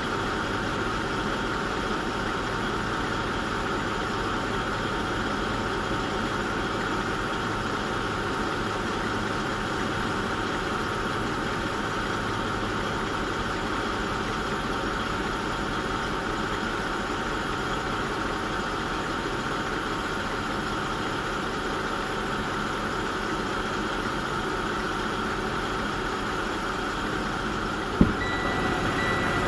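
Steady idling drone of a parked truck, heard from inside the cab. Near the end a sharp knock, then a high-pitched reversing alarm starts beeping.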